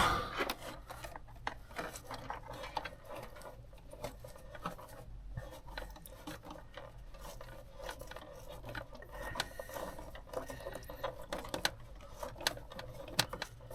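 Faint handling noise: scattered light clicks and rubbing as wiring and plastic parts are worked by hand.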